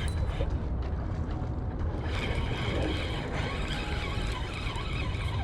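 Steady rushing noise of river current, with a low rumble.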